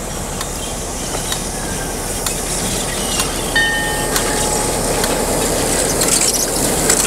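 Diesel locomotive passing close by, its engine running and its wheels clicking over the rail joints, growing louder as it comes alongside. Short thin wheel squeals can be heard partway through.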